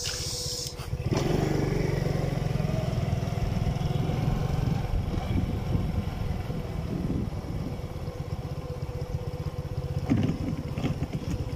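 Motorcycle engine running while riding, with wind and road noise; it gets louder about a second in.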